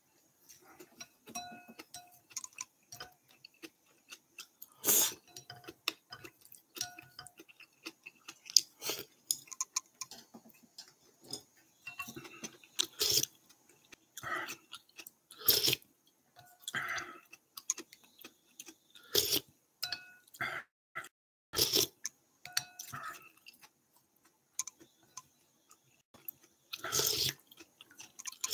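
A person eating the last of a bowl of ramen soup: sipping from a wooden spoon and chewing, with irregular knocks and clinks of the spoon against the ceramic bowl, some ringing briefly.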